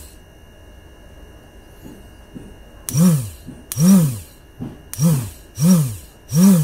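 Motorcycle electric starter motor, fitted with new carbon brushes, run on the bench off a 12-volt supply in short pulses. After a quiet first three seconds it gives about four quick spin-ups in a row, each a whine that rises and falls in pitch as the motor speeds up and coasts down. It now turns strongly, a sign that replacing the worn carbon brushes has cured the no-start.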